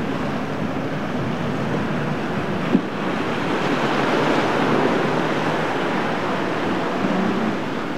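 Waves and surf breaking, with wind buffeting the microphone; a single sharp click a little under three seconds in.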